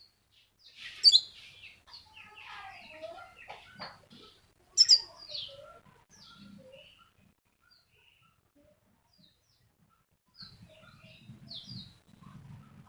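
Bird chirping: scattered short calls, with two loud, sharp chirps about a second in and again near five seconds, then only a few faint calls.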